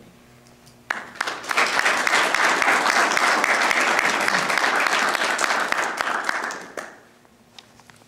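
Audience applauding. The applause starts about a second in, quickly swells into dense clapping and dies away near the end.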